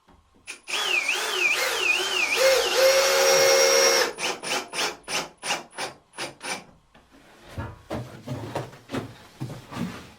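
Cordless drill driving a screw into wood: the motor whine wavers up and down in pitch under load for about three seconds, then holds steady. A run of short trigger pulses follows, about three a second, then a few quieter knocks near the end.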